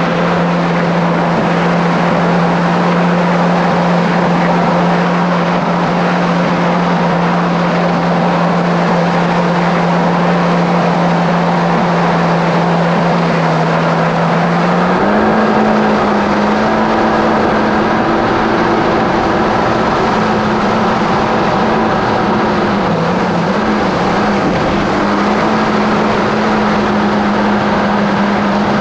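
Kawasaki SX-R 1500 stand-up jet ski's four-stroke four-cylinder engine running at a steady high speed over a steady rushing noise, its pitch stepping up about halfway through as more throttle is given.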